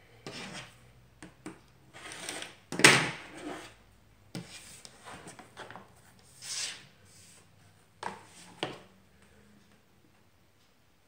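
Rotary cutter slicing through fabric along an acrylic quilting ruler on a cutting mat, followed by the ruler and fabric being shifted and set down, with a few sharp taps.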